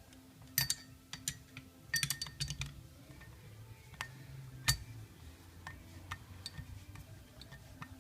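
Scattered metallic clicks and clinks of hand tools and screws being handled during work on a NuVinci bicycle hub, with a quick run of clinks about two seconds in and one loud clink near the middle, over a low steady hum.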